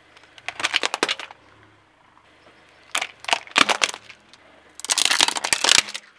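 Hard plastic toys cracking and snapping under a car tyre as it rolls over them, in three bursts of quick crackling breaks.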